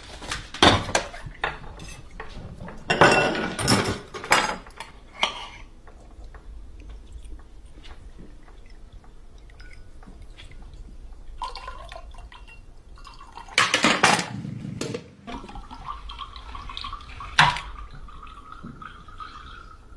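Homemade chain-reaction contraption running: bursts of clattering, knocking and clicking as small objects, a glass of liquid and levers are tipped and moved. The clatter is loudest in the first few seconds and again about two-thirds through, with one sharp click near the end followed by a faint thin tone.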